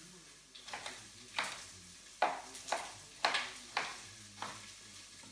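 Chef's knife chopping red pepper into chunks on a cutting board: a series of sharp knocks, about two a second and unevenly spaced.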